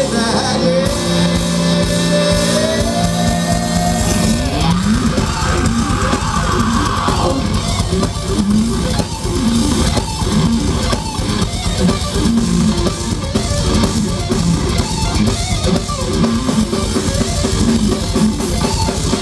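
Rock band playing live with electric guitars and drum kit in an instrumental passage of a heavy rock song. Long held notes in the first few seconds give way to steady, dense drumming from about four seconds in.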